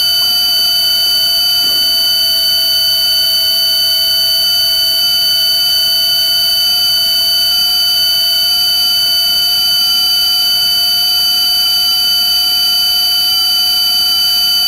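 Loud, steady electronic tone made of several held pitches at once, with no pulsing or change in level.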